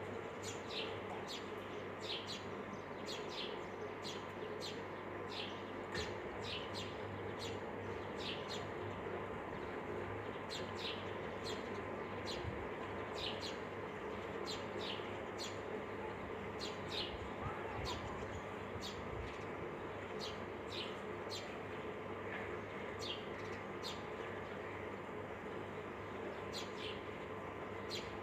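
Small birds chirping repeatedly: short, quickly falling chirps, one or two a second with brief pauses, over a steady low hum.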